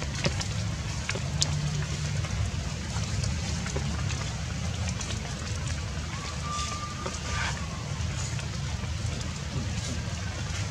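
Outdoor ambience: a steady low rumble with scattered light clicks and crackles, and a brief high whistle-like tone about six and a half seconds in.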